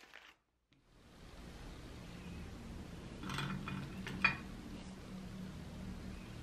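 Quiet tabletop handling sounds over a faint low hum: a short rustle about three seconds in, then a single sharp click a second later.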